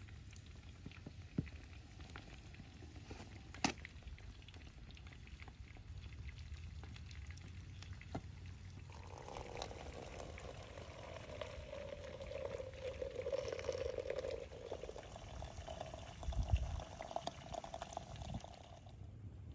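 Steaming hot water poured from a black kettle into a small brass teapot for about ten seconds, starting some nine seconds in. The pitch of the pour climbs near the end as the pot fills. Before the pour come a few sharp clicks.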